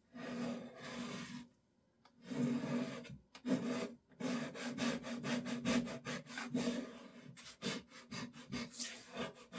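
A scraper drawn across the wooden top of a 1930s radio cabinet, lifting varnish softened by paint stripper: a run of scraping strokes, longer ones at first and short, quick ones in the last two seconds or so.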